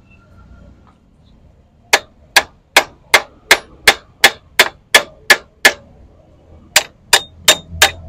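Sharp metal-on-metal hammer blows on the gears and shafts of a John Deere 5310 tractor's gearbox, as parts are knocked into place during reassembly. Eleven clangs come at an even pace of about three a second, then after a short pause four more.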